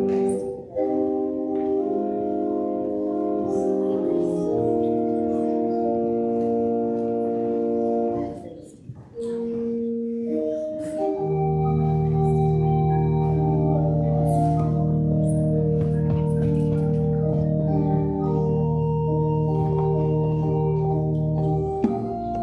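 Organ playing slow, sustained chords. There is a short break about eight seconds in, and a low held bass note comes in about eleven seconds in and lasts until near the end.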